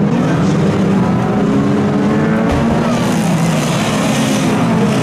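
Engines of several 2-litre banger racing cars revving and running together, their pitch rising and falling, with one sharp thump about two and a half seconds in.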